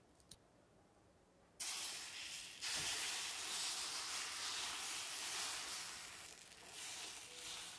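Thin flour batter ladled onto a hot griddle plate, sizzling. The hiss starts suddenly about a second and a half in, grows louder a second later, eases and then swells again near the end as more batter goes down.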